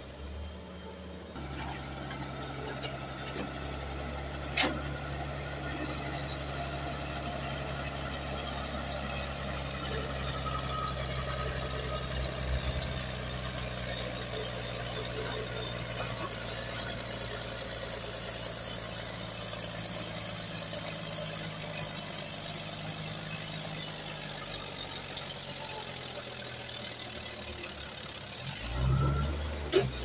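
Caterpillar D6D bulldozer's diesel engine running steadily as the crawler pushes wet clay with its blade. A sharp click comes about four and a half seconds in, and a low thump and click come near the end.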